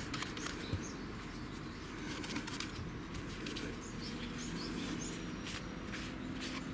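Quiet outdoor background: a steady low rumble, with faint short bird chirps repeating in the second half and light rustling of a paper towel wiped over the engine's cylinder head.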